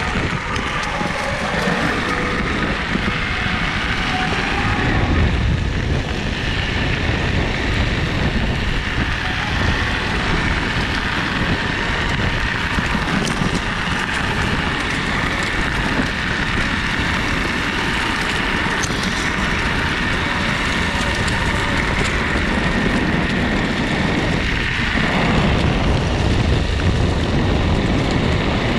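MetroboardX electric skateboard rolling over a gravel trail: air-filled tyres rumbling and crunching on the gravel, with a steady high whine from its belt-driven motor that fades near the end, and wind on the microphone.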